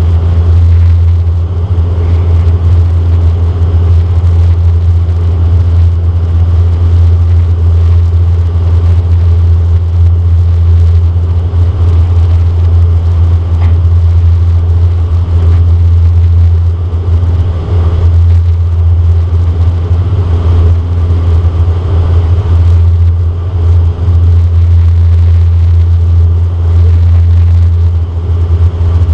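De Havilland Canada Dash 8 Q400 turboprop heard from inside the cabin in flight. Its Pratt & Whitney PW150A engines and propellers make a loud, steady low drone with a fainter hum above it.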